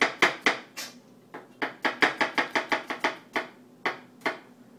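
Large kitchen knife chopping cucumber on a plastic cutting board: quick, even knocks about five a second, in two runs with a short pause between, then two single chops near the end.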